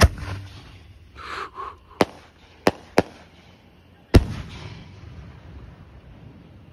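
Professional display firework shells bursting. A heavy boom comes right at the start, then three sharp cracks between about two and three seconds in, and another deep boom about four seconds in that trails off in a low, rolling echo.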